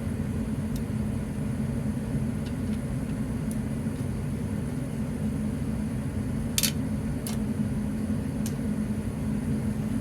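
Steady low background rumble with a few sharp clicks in the second half, from hands working a wall-mounted fire alarm device free.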